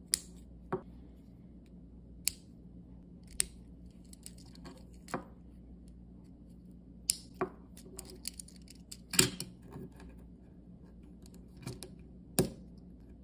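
Lego plastic pieces clicking as they are snapped onto a small model and handled: about a dozen sharp, irregular clicks, the loudest about nine seconds in.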